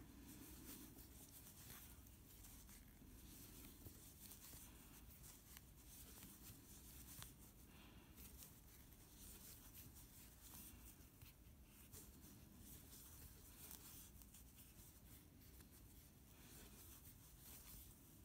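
Near silence, with faint rustling and scratching of yarn being worked with a crochet hook, stitch by stitch.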